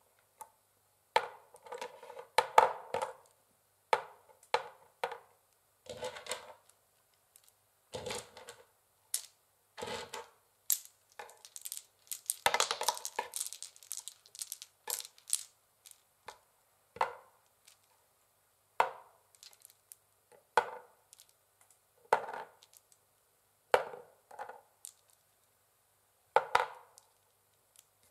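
Long fingernails tapping on a wooden chessboard: short clusters of sharp clicks with brief silences between them, and a busier run of rapid taps about halfway through.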